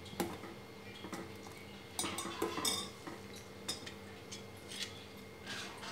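A steel ladle stirring milk reducing in a stainless steel pot, scraping and clinking lightly against the pot. The clinks are few and scattered, the busiest stretch about two seconds in.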